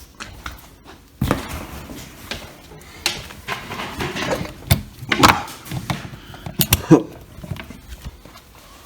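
Computer cables and connectors being handled and plugged into PC components: a series of irregular plastic clicks and knocks with rustling between.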